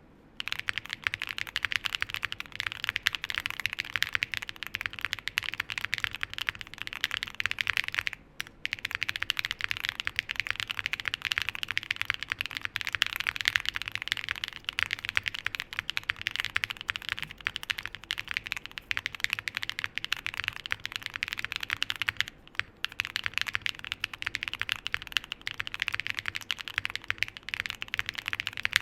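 Continuous fast typing on a Neo65 Cu mechanical keyboard with stock Kailh BCP linear switches, a polypropylene plate and PBT keycaps, a dense run of keystrokes. The typing stops briefly twice, about a third of the way and three-quarters of the way through.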